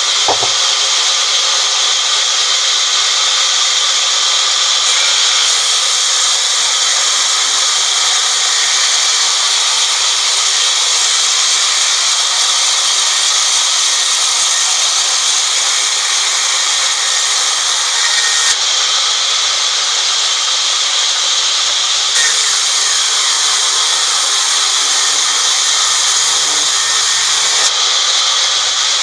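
Band sawmill's band blade cutting lengthwise through a teak slab: a steady, high-pitched sawing noise that goes on without a break.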